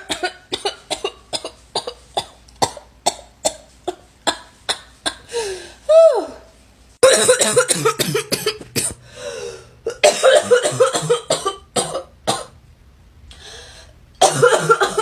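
A girl's barking cough, many coughs in one breath. Short sharp coughs come about three a second for the first few seconds. Around six seconds in there is a brief sound that rises and falls in pitch, followed by longer, denser coughing fits.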